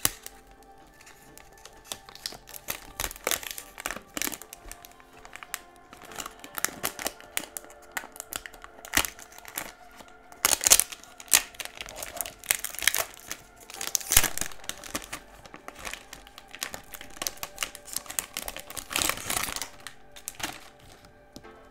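Clear plastic shrink wrap crinkling and crackling as it is picked open, torn and peeled off a perfume box by hand. The crackles come irregularly throughout, thickest around the middle and again near the end.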